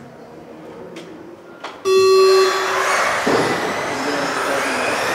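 A loud electronic start tone sounds for about half a second, about two seconds in. Right after it, a pack of electric off-road RC race cars sets off together, and their motors whine, rising and falling in pitch over steady tyre noise.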